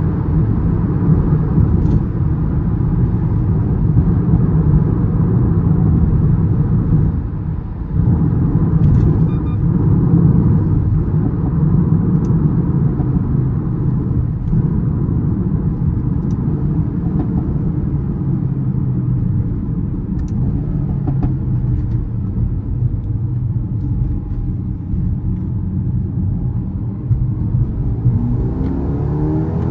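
Mercedes-AMG A35's turbocharged 2.0-litre four-cylinder engine and exhaust pulling steadily on the road, with a brief dip in the sound about seven seconds in. The revs rise near the end as the car accelerates.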